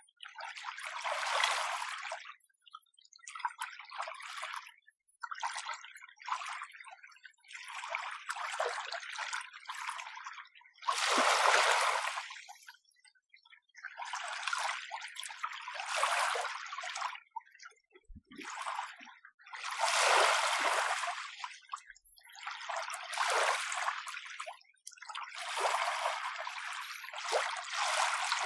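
Small, gentle sea waves lapping at the shore. Each one is a short wash of water, about one every two seconds, with brief quiet gaps between them.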